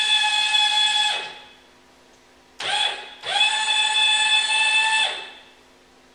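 Electric linear actuators whining steadily as they lift a wheelchair ramp with 225 lb standing on its end. The whine runs for about a second, then drops in pitch and stops. After a short blip it starts again for about two seconds before winding down the same way.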